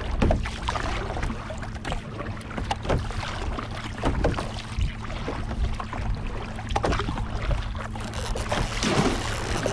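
Double-bladed paddle strokes on a sea fishing kayak: the blades dip and splash in the chop with water sloshing along the hull, in repeated irregular splashes over a steady rush of water, with a faint steady low hum underneath.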